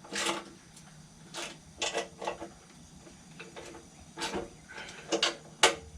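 Irregular clicks and clinks of hand tools and metal parts being handled while bolts are fitted on a Snapper push mower deck.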